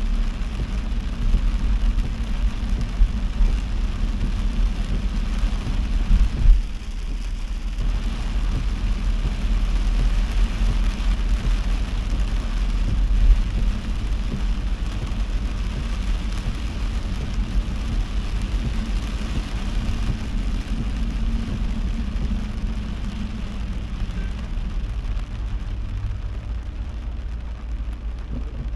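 Heavy rain on a moving car over the steady low rumble of its engine and tyres on the wet road. About six seconds in there is a short thump, and the rain noise drops away for about a second.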